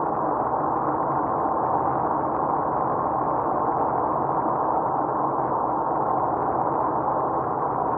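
Steady road, tyre and engine noise inside a car cruising at highway speed, heard through a dashcam's microphone: an even, dull noise with a faint low engine hum underneath.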